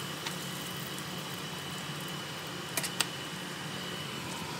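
Battered cauliflower florets frying in oil in a wok: a steady sizzle over a low hum, with a few sharp clicks of metal tongs against the pan, two of them close together about three seconds in.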